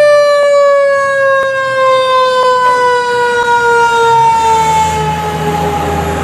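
Fire truck siren wailing, one long tone falling slowly in pitch, loud. A low engine rumble comes up about four seconds in as the ladder truck passes close.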